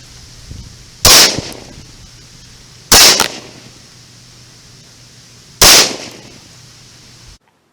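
AR-15 rifle with a .223 Wylde upper, running its standard 5.56 bolt, firing three single shots about two seconds apart, each loud crack trailing off in a short echo. The sound cuts off suddenly near the end.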